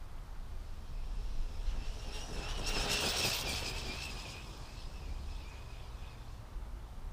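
Arrma Typhon 1/8 buggy's brushless electric motor whining at full speed on a 4S battery as the car passes: a high whine and rush swell to their loudest about three seconds in, then fade away. Low wind rumble on the microphone underneath.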